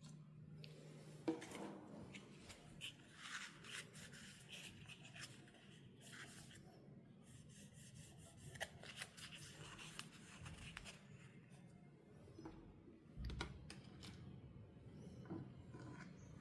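Faint handling sounds of toys and packaging: soft rustles and scrapes with scattered small clicks, the sharpest click about a second in.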